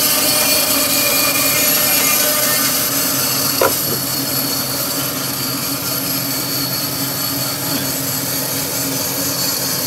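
A 20-inch bandsaw with a carbide-tipped Laguna Resaw King blade, running and cutting steadily lengthwise through a dogwood log, over the steady hiss of a shop-vac dust collector. There is a short tick about three and a half seconds in.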